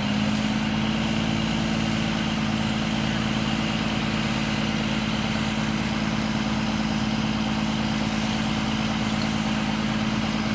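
Fire truck engine running steadily: an even engine hum holding one strong, steady pitch.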